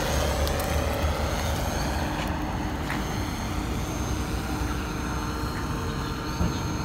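Electric RC plane's brushless motor and propeller running in flight, a steady whine that fades as the plane flies away.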